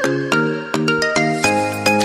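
Background music: a bright, ringtone-like melody of evenly spaced struck notes, about two and a half a second, with a deeper bass coming in about one and a half seconds in.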